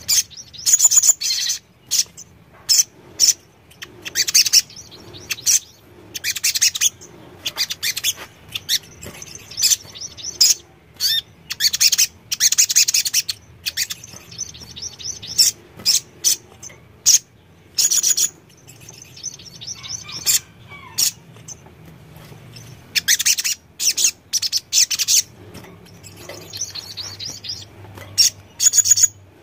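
Olive-backed sunbird (sogon) singing: quick, high-pitched twittering phrases, short bursts repeated about once a second with brief pauses between them.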